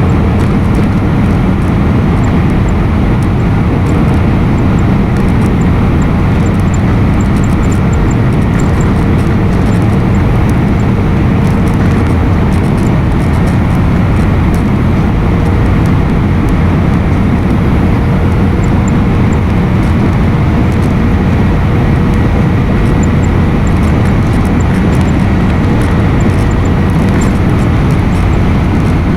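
Steady engine and airflow noise inside an airliner's passenger cabin, heaviest at the low end, with a faint steady whine running under it.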